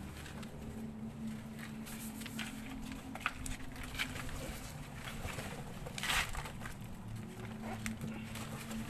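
Scattered scrapes, knocks and rustling of wooden boards and debris being pulled by hand out of a concrete tomb niche, with a louder rustling scrape about six seconds in. A steady low hum runs underneath.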